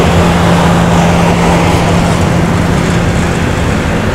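Loud, steady drone of engines and machinery aboard a roll-on/roll-off ferry, with a constant low hum throughout.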